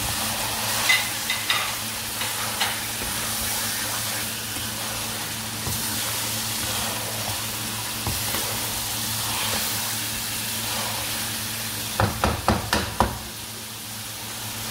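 Chicken pieces and sliced green chillies sizzling in a hot wok, stirred with a spatula that scrapes and clicks against the pan. A quick run of about five knocks comes near the end.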